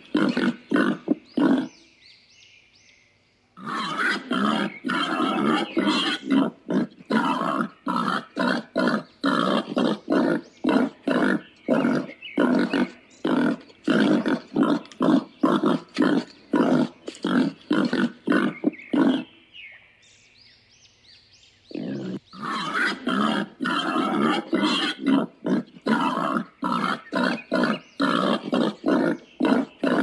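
Warthog feeding close up at its food, making short rhythmic grunting noises about two or three a second, with two brief pauses.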